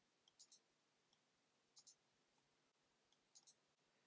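Faint computer mouse clicks over near silence: three pairs of quick clicks, about half a second, two seconds and three and a half seconds in.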